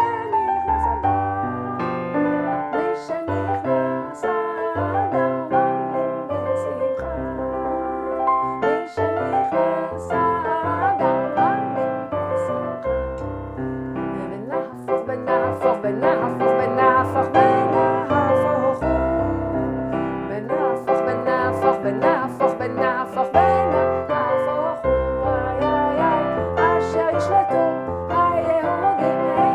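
Electric keyboard playing a lively Jewish nigun melody, with many short notes over a bass line.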